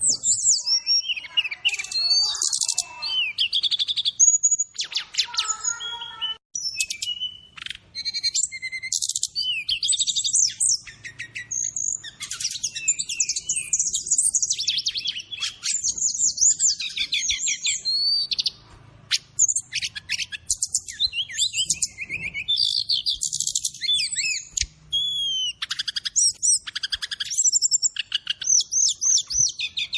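Brown-chested jungle flycatcher (SRDC) song, a fast, varied run of high chirps, trills and short whistled glides with hardly a pause. It is a training recording mixed with fill-in phrases of other birds.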